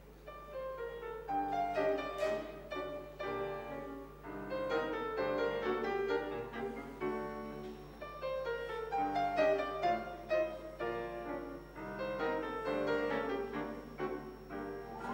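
Grand piano played solo, a steady stream of notes beginning just after the start.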